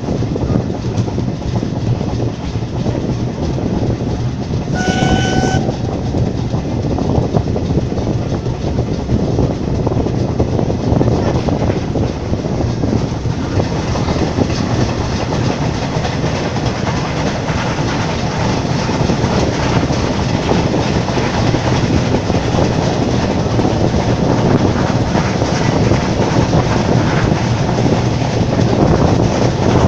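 Passenger train running, heard at an open carriage window: wheels clattering over the rails with a steady rush of wind and running noise. About five seconds in comes one short, high toot from a train whistle or horn. From about the middle on, an electric locomotive and a string of freight wagons pass close by on the next track, and the rushing noise grows a little louder.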